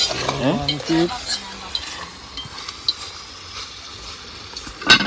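Chicken curry sizzling and frying in a cooking pot while it is stirred, with small clicks of the spoon against the pot. A loud knock near the end.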